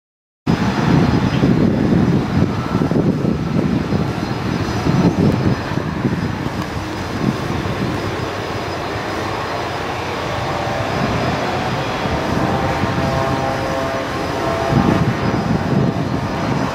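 Beechcraft T-6 Texan II turboprops, with Pratt & Whitney PT6A engines, running at takeoff power, heard as a steady, uneven low rumble. From about ten seconds in, a higher whine of several steady tones joins it.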